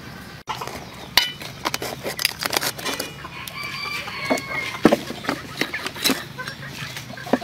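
Chickens clucking, mixed with a string of sharp clicks and knocks.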